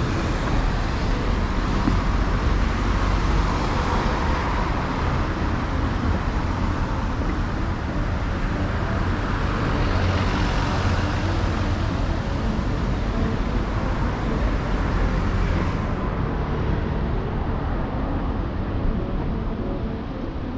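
Steady city street traffic noise, swelling twice as vehicles pass. The high hiss thins suddenly about 16 seconds in.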